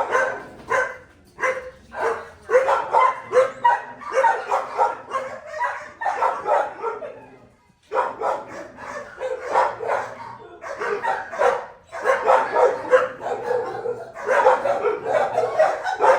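Shelter dogs barking over and over in quick, overlapping barks, with a short lull about halfway through.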